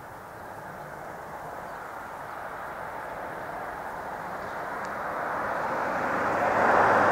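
A vehicle passing by: a rushing noise that swells steadily, peaks about seven seconds in, then begins to fade.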